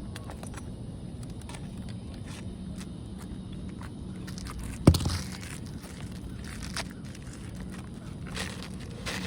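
Small scrapes and clicks of hand work on asphalt roof shingles, with one hard knock about five seconds in.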